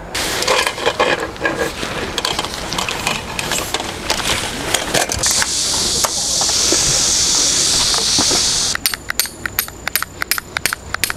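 Camping gear being handled during tarp and tent setup: rustling and knocking, then a steady hiss for about three seconds, then a quick run of sharp metallic clicks near the end.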